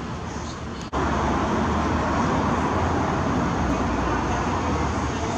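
Steady road-traffic noise, a low rumble and hum with no distinct events. A brief dropout about a second in, after which it is a little louder.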